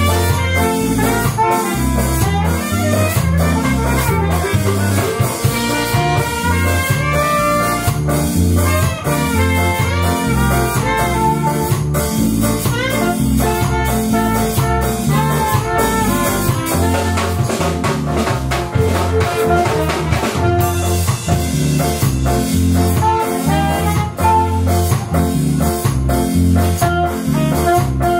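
Live band music: saxophone and trumpet playing the melody together over bass and a drum kit keeping a steady beat.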